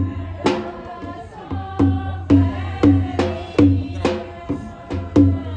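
Music with a steady drum beat, about two beats a second, with pitched instrumental notes between the strikes.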